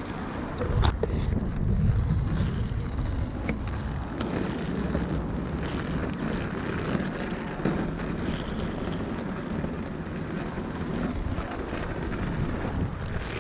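Inline skate wheels rolling over pavement, a steady rolling noise, with wind buffeting the microphone and a few sharp clicks.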